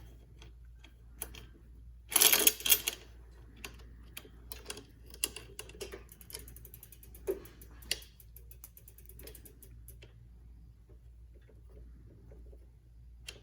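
Bicycle chain clicking and rattling as it is handled and fed through the rear derailleur, with a loud clatter of links about two seconds in and a run of fast, even ticking midway.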